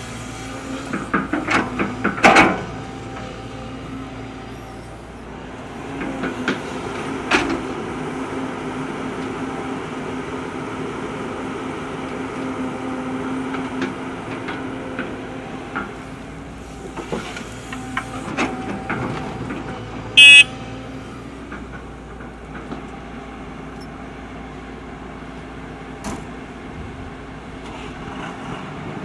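JCB tracked excavator's diesel engine running steadily while it digs and loads, with scattered clanks and knocks of bucket, rock and earth, the loudest about two seconds in. About twenty seconds in, a very short, very loud high-pitched tone cuts through.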